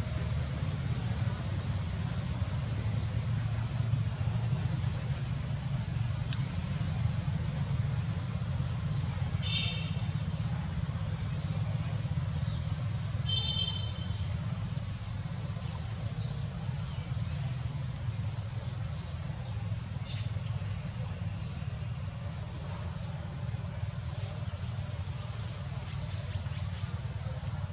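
Outdoor ambience: a steady low rumble under a constant high-pitched hiss, with scattered short rising bird chirps and two brief high, squeaky calls about ten and fourteen seconds in.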